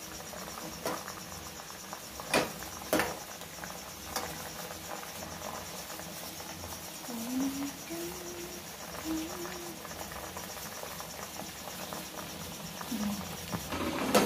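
Diced sweet potato boiling in an aluminium pot on a gas stove, with a metal ladle knocking sharply against the pot three times in the first few seconds. A cricket chirps steadily behind it.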